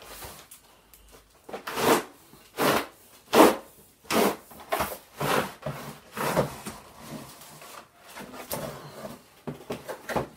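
A cardboard shipping box and its plastic wrap scraping and crinkling in a quick series of short swishes as a longbow in a foam mesh sleeve is slid out of it.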